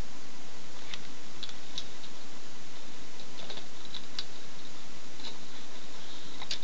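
Steady hiss with a handful of light, scattered clicks and taps.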